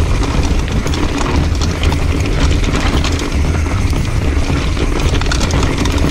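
Mountain bike clattering and rattling over a rough, rocky trail at speed, with dense irregular knocks from the bike and a steady wind rumble on the microphone.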